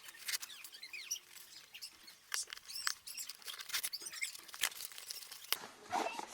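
Irregular crinkling, clicking and small squeaks of a small product box and its packaging being handled and opened.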